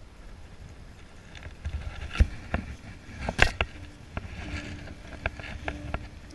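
Scattered sharp knocks and clicks from an angler handling a fly rod and gear in a small boat, the loudest about halfway through, over a low wind rumble on the microphone.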